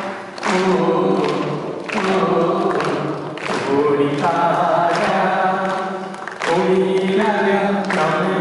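A man singing a Malayalam Christian devotional song through a microphone in long held phrases.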